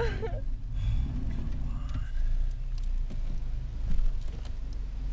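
Car engine running steadily with a low, even hum.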